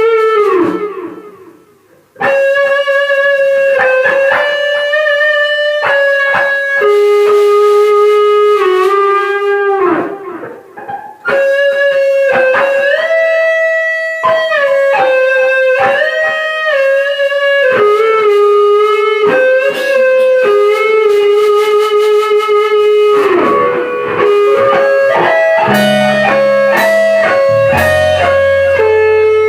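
Electric guitar playing a slow lead melody of long held notes. About a second in, one note slides down and dies away before the melody resumes, and lower notes join underneath near the end.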